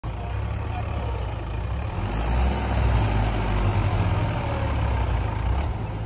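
Four-cylinder diesel engine of a Mahindra 575 DI tractor running steadily at a low, even throb, a little louder around the middle.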